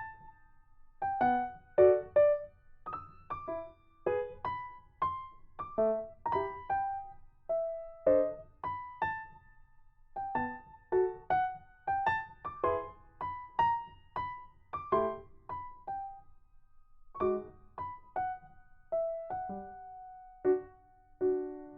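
Background music: a gentle keyboard melody of single struck notes that ring and fade, about two a second, with a brief pause about two-thirds of the way through.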